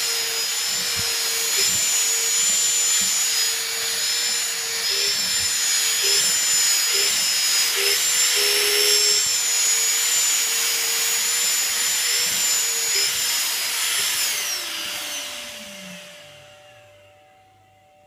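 Vacuum cleaner motor running with a high, steady whine, then switched off about fourteen seconds in and winding down, its pitch falling as it spins to a stop. Occasional soft knocks are heard under the running motor.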